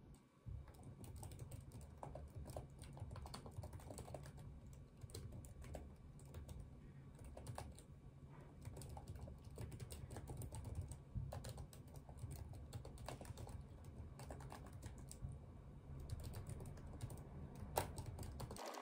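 Fingers typing on a laptop keyboard: a quick, irregular run of soft key clicks over a low steady room hum.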